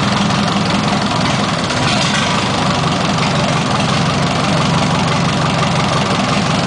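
Nissan QD32 four-cylinder diesel engine, out of the vehicle, idling steadily.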